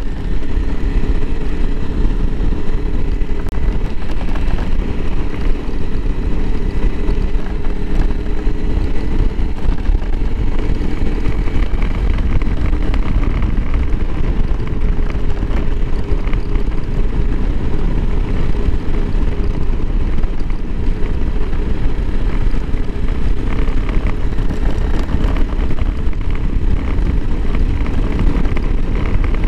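Honda CRF300L Rally's single-cylinder four-stroke engine running steadily while the bike is ridden at an even road speed, its pitch drifting slightly, over a heavy low rumble.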